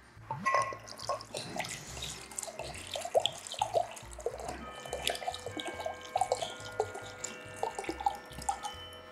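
Cherry brandy glugging out of a glass bottle into a glass measuring jug: a steady run of gurgles as it pours.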